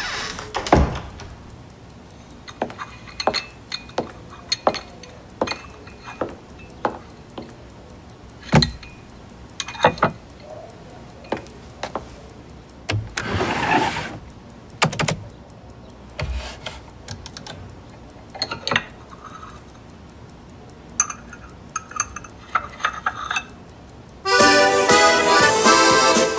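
Irregular sharp clicks and knocks, with a short rustling burst about halfway through. Near the end, accordion music starts abruptly and loudly.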